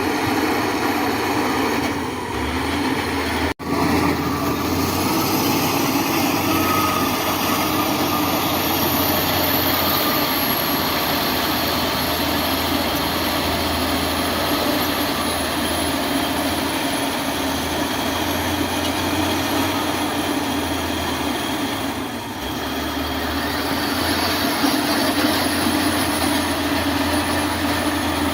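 Heavy construction machine's diesel engine running steadily, with a brief dropout about three and a half seconds in.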